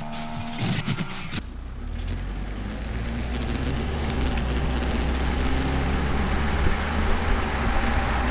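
Stock 2.8-litre Duramax four-cylinder turbodiesel of a Chevrolet Colorado ZR2 under hard acceleration, heard from a microphone beside its stock exhaust: a low, steady exhaust note with road and wind noise, growing louder over several seconds. For the first second and a half, before a cut, a different engine-like tone from an inserted film clip.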